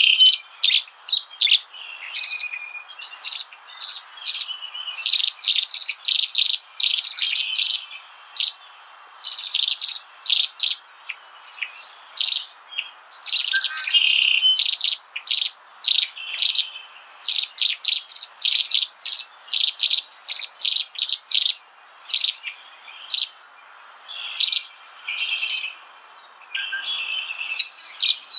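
Small birds chirping continuously: quick runs of short, high chirps with brief gaps between them.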